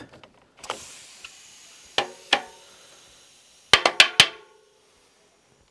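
Charged air from a Topeak Joe Blow Booster track pump's booster chamber released into a tubeless road tyre: a sudden rush of air that fades over about three seconds. Sharp pops of the tyre beads snapping onto the rim, two about two seconds in and four in quick succession a second and a half later, mean the tyre has seated.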